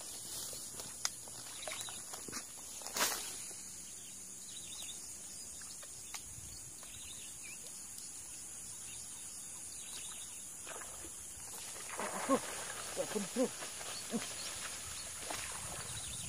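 Open-air swamp ambience with a steady high hiss. About twelve seconds in comes a short cluster of splashes and knocks: a snakehead striking at a soft frog lure in the grass.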